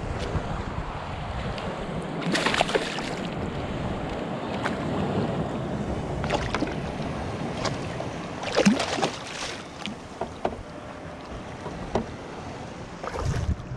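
Water sloshing and splashing beside a kayak as a hooked tautog is brought to the surface and grabbed by hand, with a few short splashes a few seconds in, around the middle, and near the end, over light wind on the microphone.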